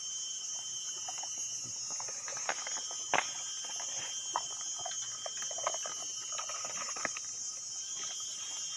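Steady high-pitched insect drone, with scattered rustling and short clicks over it, the sharpest about three seconds in.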